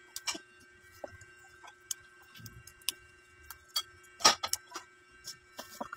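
Scattered crisp snaps and clicks at an irregular pace, the loudest a little past the middle, as kangkong (water spinach) stems are handled and broken by hand. A faint steady hum runs underneath.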